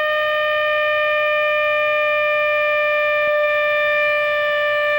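Vintage Compu-Chron digital alarm clock's alarm going off: a single steady, unbroken electronic buzz with no beeping rhythm, loud and annoying.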